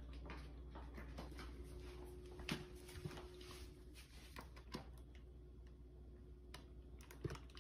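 Faint, scattered clicks and crackles, a few a second at most, from a dog moving about with its head inside a paper microwave-popcorn bag: the paper rustling and the dog's feet on a tiled floor.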